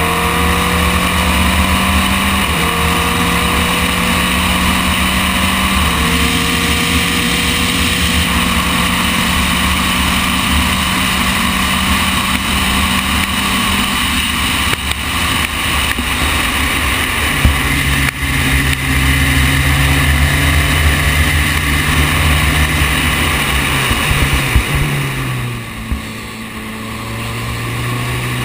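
Inboard sound of a Formule Renault 2.0 racing car's 2-litre four-cylinder engine running hard, its note stepping down in pitch several times as the sequential gearbox shifts, with steady wind rush over the cockpit. Near the end the engine briefly eases off and then climbs in pitch again as the car accelerates out of a bend.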